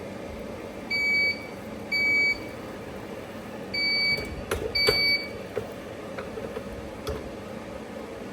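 An appliance's electronic beeper sounding four short, high beeps, in two pairs, with a few sharp clicks around the last two, over a steady room hum.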